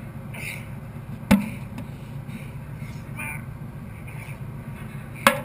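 Sandbag workout reps with a 50 kg sandbag: two sharp thuds about four seconds apart as the bag is heaved and set down, over a steady low rumble.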